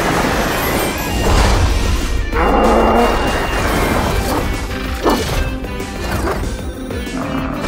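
Cartoon transformation sound effects for a robot bull-bulldozer: metallic crashes, clanks and mechanical whirs, with a couple of sharp hits, over background music.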